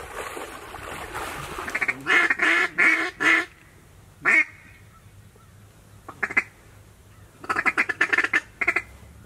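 Duck call blown in loud, short quacks: a run of four notes, a single quack, a pair, then a rapid string of quacks near the end.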